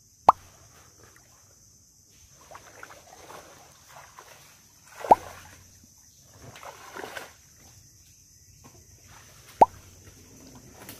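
Shallow creek water sloshing and splashing softly as someone wades through it, broken by three sharp plops about five seconds apart.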